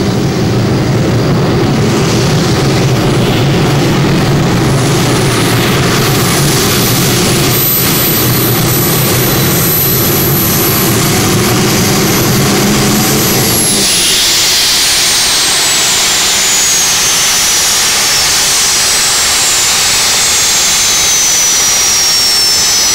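Gas-turbine-powered modified pulling tractor (Isotov helicopter turbine) under full load, a heavy rumble with a high steady whine on top. About 14 seconds in the rumble cuts off and the turbine's whine falls steadily in pitch as it spools down at the end of the pull.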